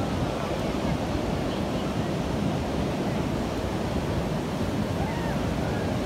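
Atlantic surf breaking and washing over a flat sandy beach, a steady rush of sea noise, with wind rumbling on the microphone.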